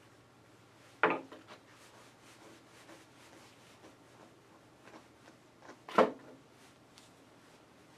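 A brush being worked through a dog's curly ear fur: faint scratchy rubbing strokes, with two short, louder strokes, one about a second in and one near six seconds. A low steady hum runs underneath.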